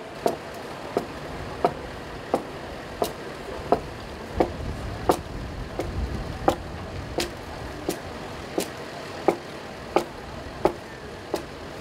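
A shipwright's hand adze chopping into timber in a steady rhythm, a sharp wooden strike about every two-thirds of a second, some seventeen strikes in all.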